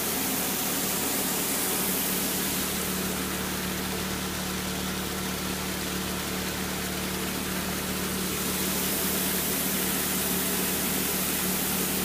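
Small engine-driven water pump running steadily with an even hum, over the rush of water through a sluice box.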